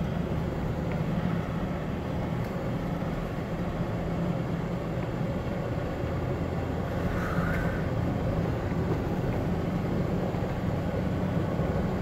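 Four-wheel-drive vehicle driving steadily along a sand beach, heard from inside the cabin: an even hum of engine and tyre noise.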